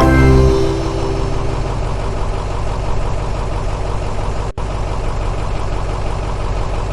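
A motor or engine running steadily. A few musical notes sound in the first half second, and the sound drops out for an instant about four and a half seconds in.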